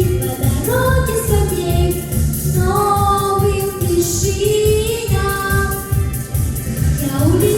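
A solo voice singing a melody over a pop backing track with a steady beat.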